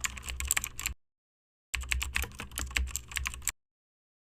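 Fast computer keyboard typing, a dense clatter of key clicks over a low hum, in two runs: about a second of keys, then dead silence, then nearly two more seconds of typing that stop short again.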